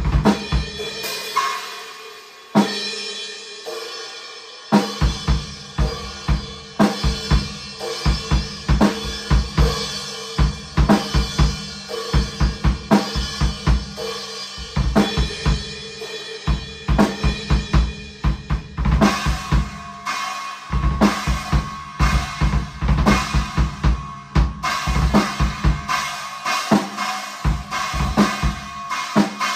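Acoustic drum kit played with sticks: bass drum, snare, hi-hat and cymbals in a fast, busy beat. About two and a half seconds in, the drums stop for about two seconds while a cymbal crash rings out, then the full beat comes back in.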